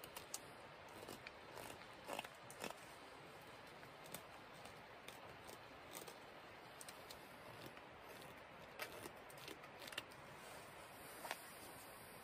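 Morakniv carbon-steel carving knife shaving a dried pear-wood branch: faint, irregular short scraping cuts, a second or more apart, over a low hiss.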